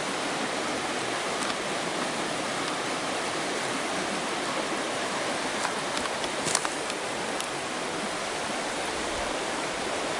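Small mountain stream flowing, a steady rush of water, with a few faint clicks a little past the middle.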